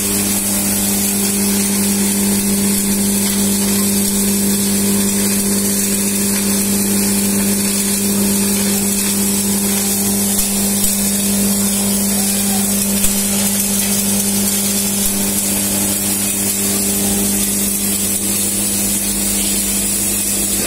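Electric masala pulverizer (herb grinding mill) running steadily with a constant hum and hiss, its hopper loaded with dried herb pieces, with a couple of small knocks about ten and thirteen seconds in.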